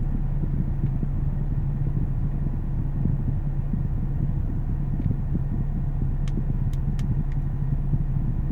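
Steady low rumble with a constant low hum, with a few faint light clicks about six to seven seconds in.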